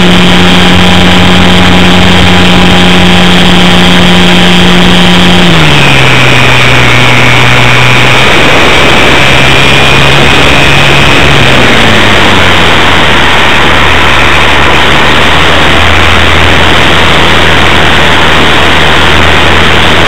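Electric motor and propeller of an RC Hobbyzone Super Cub LP heard from an onboard camera, a loud buzzing drone with a higher whine over heavy wind rush. The pitch drops about five seconds in and drops again about halfway through as the throttle is eased back.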